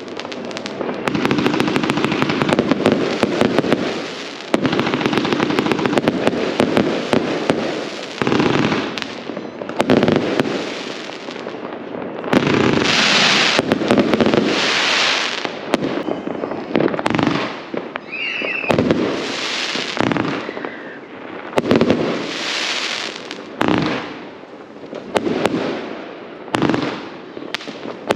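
Consumer fireworks going off: a dense, rapid run of bangs and crackling for the first few seconds, then a series of separate loud crackling, hissing bursts every second or two, with a short rising whistle about eighteen seconds in.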